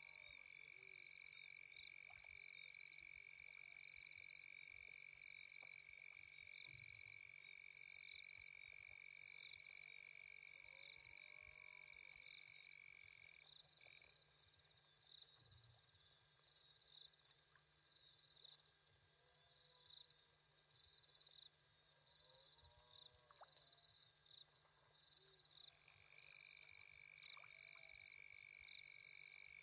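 Faint night chorus of insects and frogs: a steady, fast-pulsing high trill and a second steady high tone that drops out for a stretch in the middle, with a few short croaking calls at intervals.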